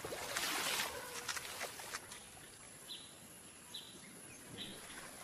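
Rainforest ambience: a soft hiss for the first two seconds, then a short high-pitched call repeated three times, a little under a second apart.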